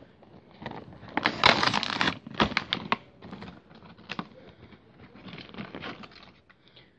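Clear plastic blister packaging being handled and pried open by hand: irregular crinkling and crackling with sharp clicks, busiest in the first few seconds and then thinning out.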